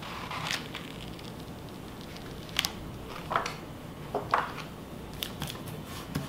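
Plastic self-adhesive laminating sheet and paper rustling under hands as they press and smooth the sheet down onto a printed page: several short crinkly swishes, spaced a second or so apart.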